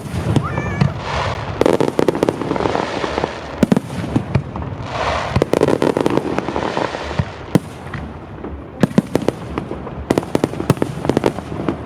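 Aerial fireworks display: a rapid, irregular series of sharp bangs and pops from bursting shells, with two longer hissing stretches, about a second in and again about five seconds in.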